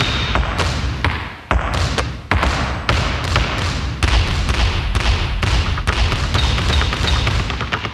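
Basketballs dribbled fast and hard on a hard floor in a tight, beat-like rhythm, with short sneaker squeaks near the start and again about three-quarters through.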